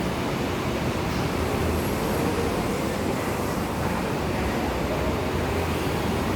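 New York City subway train running on elevated track: a steady, even noise of wheels and motors with no clear changes.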